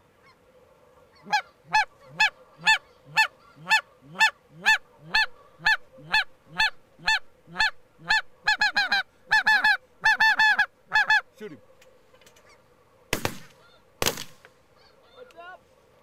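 Snow goose honking: a high yelping call repeated about twice a second, crowding into quick runs around the middle, then two shotgun shots about a second apart.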